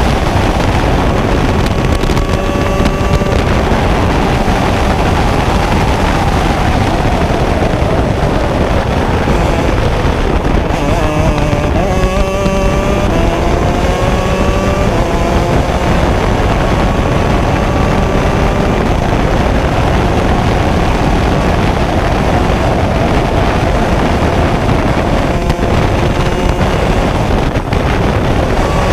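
Shifter kart's two-stroke Honda 125 motocross engine at full race pace, its pitch climbing again and again as it pulls up through the gears. The pitch drops about twelve seconds in as the kart slows, then climbs through the gears again, with heavy wind noise throughout.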